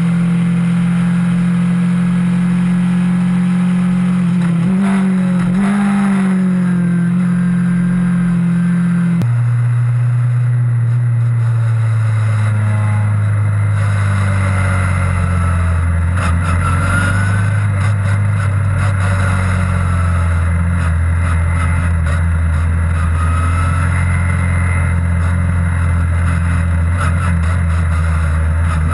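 Onboard sound of a Skip Barber open-wheel race car's engine running at steady revs; about nine seconds in the note drops sharply with an upshift, then holds a lower, steady pitch that sags slightly.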